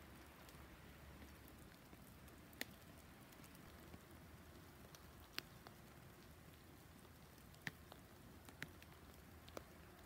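Sparse drops falling and ticking on dry fallen leaves: about six sharp, scattered ticks over a faint steady hiss.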